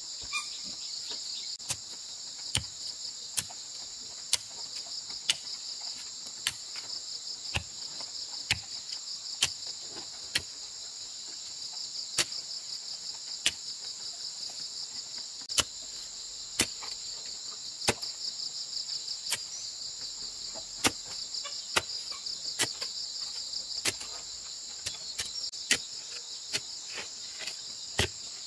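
A long bamboo-handled spade jabbing into hard earth, one sharp strike about every second, sometimes a little quicker. A steady, high-pitched chorus of insects runs underneath.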